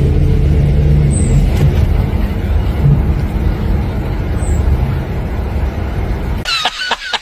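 Bus engine and road noise heard inside the passenger cabin: a steady low rumble with a hum. It cuts off abruptly near the end.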